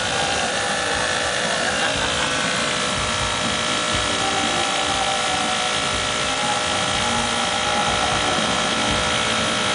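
Small motor running steadily with a constant hum and hiss: the air compressor feeding the airbrush as it sprays paint.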